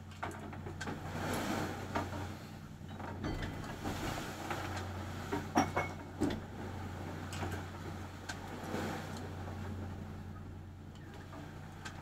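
Boat engine running steadily with a low hum, under a rushing noise that swells every few seconds as the boat rides big waves. A few sharp knocks sound about halfway through.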